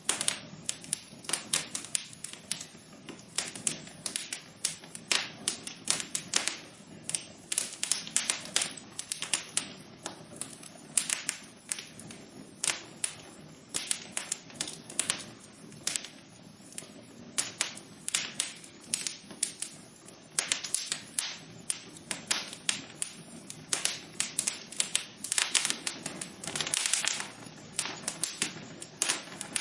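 Wood fire crackling in a fireplace: irregular sharp pops and snaps, several a second, over a soft steady hiss.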